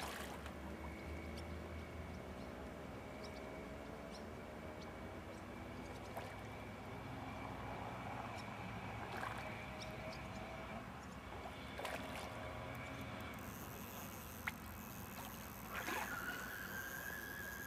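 A hooked fish splashing at the surface of a pond as it is played on a rod: several short, separate splashes over a steady low background.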